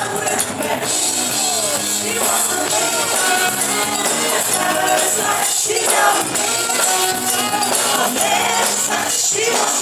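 Live band music with a steady bright jingle of hand percussion over it, and pitched melodic lines weaving in the middle.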